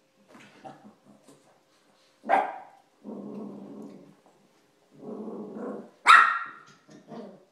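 Small dog barking and growling in rough play: a sharp bark, about a second of low growling, another growl, then a loud bark followed by two short yaps.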